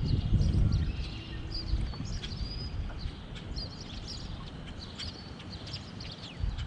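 Small birds chirping and trilling, with wind rumbling on the microphone, heaviest in the first second or so.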